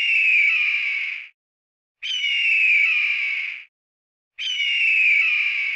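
A hawk screeching: one hoarse call, falling slightly in pitch and about a second and a half long, repeated the same way three times about every two and a half seconds.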